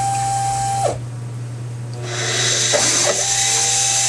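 X2 mini mill's spindle motor, under CNC program control, running with a steady whine that falls away and stops about a second in. It starts again near two seconds and spins back up, its whine rising slowly in pitch, over a steady low machine hum.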